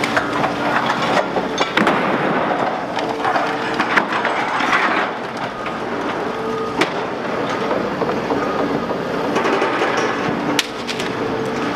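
Liebherr R930 demolition excavator running as its hydraulic shear works on a building, with steady engine and hydraulic noise under cracking and clattering of breaking material. Sharp knocks stand out about two, four, seven and ten and a half seconds in.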